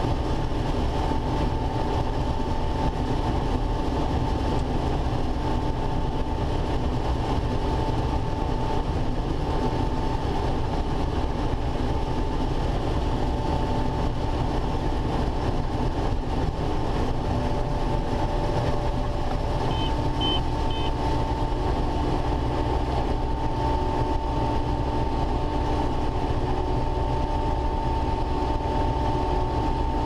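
Combine harvester running steadily while harvesting corn: an even engine and machinery drone with a held high whine over a low rumble. About two-thirds of the way through, three short high beeps sound.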